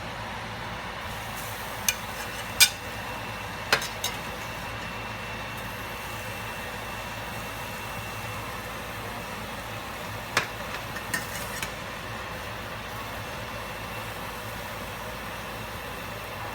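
Steady hiss of an omelet cooking in a pan, with a few sharp taps and clicks of kitchen utensils against the pan, bunched in the first few seconds and again about ten seconds in.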